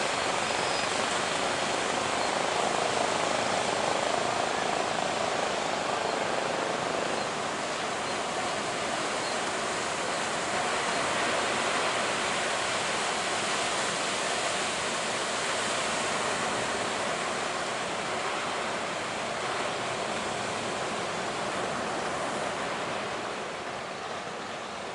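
Heavy ocean surf: big waves breaking in a steady rushing wash of noise, easing slightly near the end.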